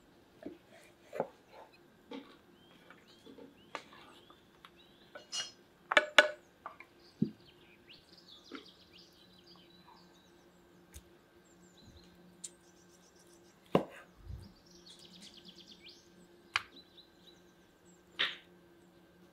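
Kitchen knives cutting meat and knocking on wooden cutting boards: irregular sharp knocks and taps, a few of them much louder. Birds chirp in the background.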